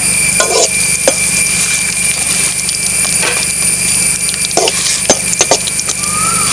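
Coconut pieces frying in hot coconut oil in an aluminium pan, a steady sizzle, with scattered clinks of a metal slotted spoon against the pan.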